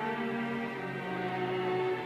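Background music with slow, held notes that change about once a second.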